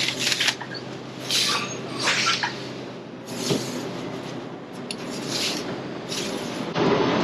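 Handling noises: about five short rustling and scraping bursts as things are moved around. Under them is a steady background hum, which gets louder near the end.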